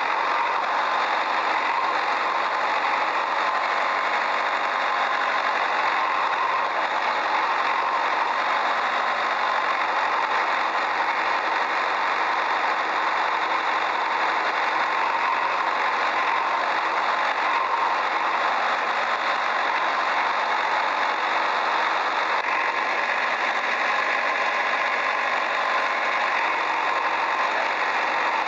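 Steady, unchanging mechanical running noise like an engine idling, thin and lacking low end, with a light rattle.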